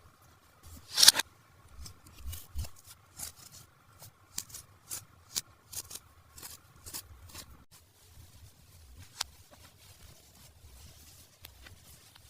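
Toy packaging being handled and opened: a loud crackle about a second in, then a run of sharp clicks and scrapes of plastic and cardboard that thin out in the second half.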